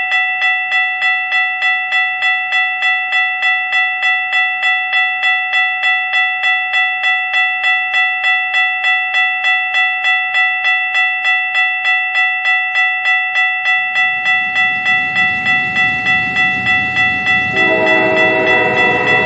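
Railroad crossing bell dinging at an even rhythm, about two to three strikes a second. Near the end a train's rumble builds beneath it, and in the last couple of seconds a train horn sounds a chord of several tones.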